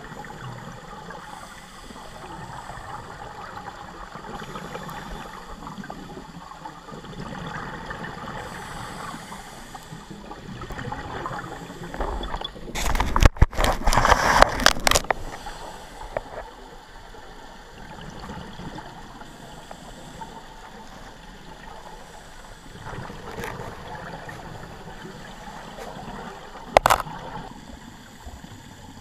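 Underwater sound through a GoPro housing: a scuba diver's regulator breathing, with exhaust bubbles gurgling in swells every few seconds. A little under halfway through there is a loud rushing, knocking burst of a few seconds as the camera is jostled, and there is one sharp knock near the end.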